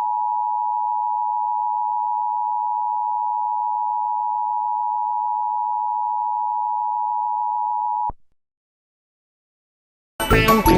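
Emergency Alert System attention signal: a steady, harsh two-tone electronic tone held for about eight seconds, then cutting off abruptly. Music starts just before the end.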